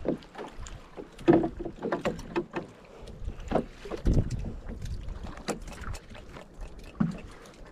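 Irregular knocks, taps and scrapes on a wooden canoe as a hooked mackerel is brought aboard on a multi-hook jig line and the line is pulled in by hand. The louder knocks come about a second in and again about four seconds in.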